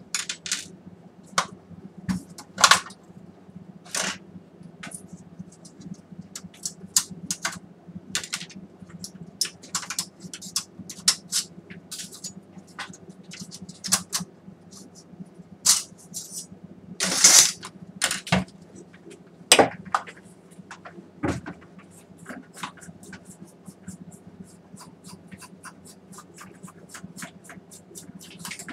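Irregular clicks, clinks and scrapes of metal parts and screws being handled as a projector is dismantled by hand, with a longer scrape about two-thirds of the way through.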